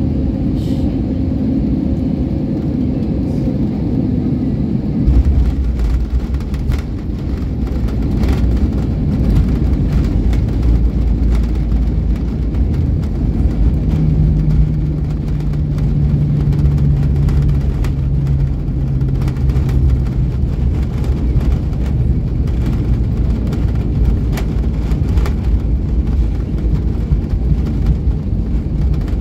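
Airbus A320neo cabin noise at landing: about five seconds in the main gear touches down and a heavy low rumble of the wheels rolling on the runway sets in, with scattered knocks and jolts. Partway through a steady engine hum rises over the rumble for a few seconds, then drops lower as the aircraft slows.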